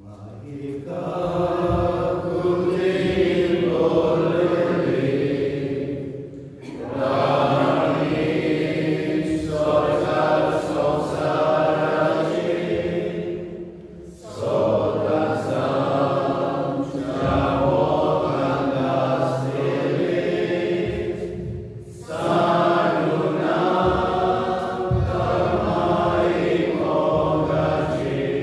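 A small congregation singing a hymn together, in long sung phrases of about seven seconds with brief pauses between.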